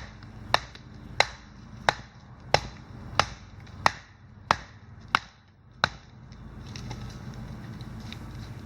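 Steady chopping into wood: about ten sharp strikes at an even pace, roughly one and a half a second, stopping about six seconds in.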